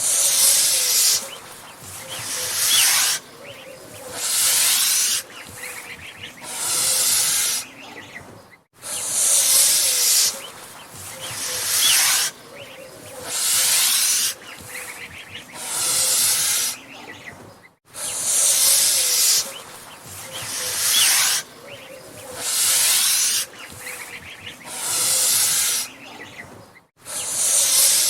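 Angry goose hissing: a run of loud hisses about one every second and a half to two seconds, with quieter hissing between them. The same run of hisses repeats about every nine seconds, each time after a brief silence.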